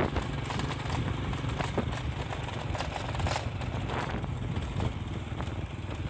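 Motorbike engine running steadily while riding, heard from the rider's seat with wind noise over it.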